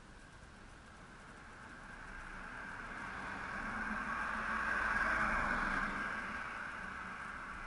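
A car driving past on the road: tyre and engine noise swells, peaks about two-thirds of the way through, then fades as it moves away.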